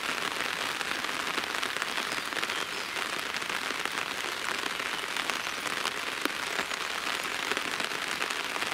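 Steady rain falling, a constant hiss of rain peppered with many small drop hits.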